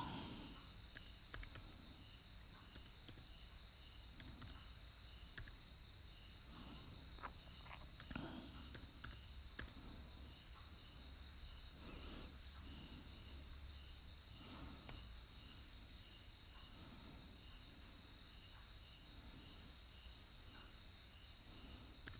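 Faint background crickets: a steady high trill with a regularly pulsing chirp, over a low hum. A few soft taps come through here and there.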